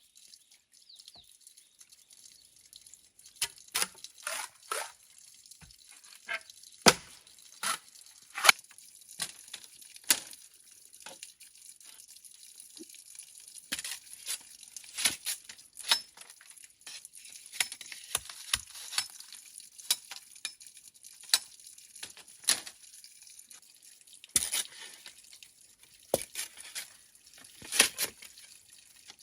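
Irregular light clicks and knocks, as of small objects being handled and set down, spaced unevenly with some short clusters.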